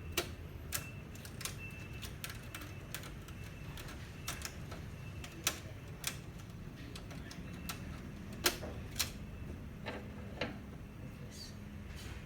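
Irregular small clicks and taps of plastic and metal printer parts being handled and unfastened during disassembly of the scanner unit, over a low steady hum.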